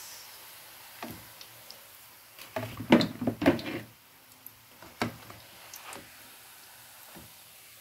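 Slotted skimmer knocking and clattering against a steel pot while fried puff puff are lifted out of the hot oil. A few sharp knocks come with a louder cluster about three seconds in, over a faint steady sizzle of the frying oil.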